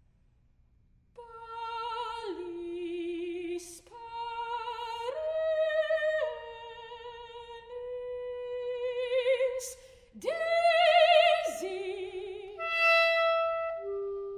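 Soprano singing a contemporary classical art song with wide vibrato, leaping between held notes, with a clarinet playing alongside. It begins about a second in, after near silence.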